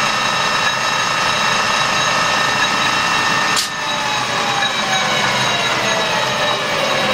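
Colchester Student lathe headstock running with a steady gear whine, its headstock freshly refilled with oil. About three and a half seconds in the start handle is thrown off with a clack, and the whine falls in pitch as the spindle and gears coast down.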